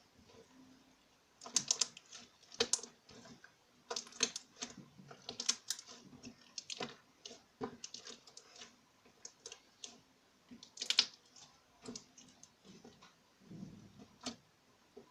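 Hands kneading and squeezing glittery slime, giving irregular wet clicks and pops several times a second.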